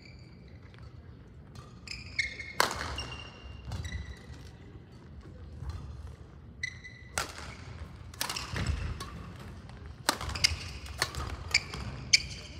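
Badminton rally: several sharp racket strikes on the shuttlecock, coming more quickly in the last few seconds, each followed by a short echo. Shoes squeak briefly on the hall floor between the hits.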